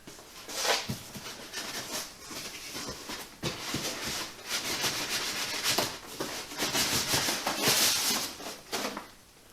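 Packing material rustling and scraping as parts are handled and lifted out of a shipping box, with a run of short rubbing noises and small bumps, loudest a little before the end.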